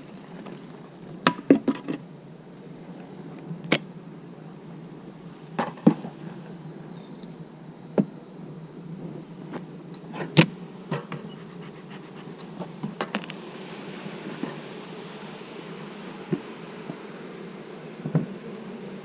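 Honeybees buzzing around a hive in a steady hum, with a number of sharp clicks and knocks scattered through it, the loudest about ten seconds in.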